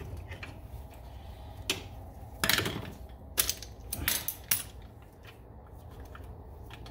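Sharp metallic clinks and scrapes of needle-nose vise grips and a large flathead screwdriver working against a drum brake's shoe spring as it is pried off. The clinks are scattered, with the loudest cluster about two and a half seconds in and a few more strong ones over the next two seconds.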